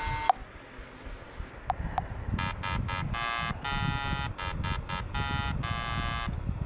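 A truck horn blows a rhythmic run of short and longer toots, about ten in four seconds, over a low engine rumble, as the sound effect of a cartoon semi-trailer truck.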